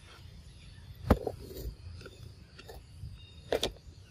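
Macaque eating mango: a few wet mouth smacks and clicks, two loud ones about one second and three and a half seconds in, over a low steady rumble.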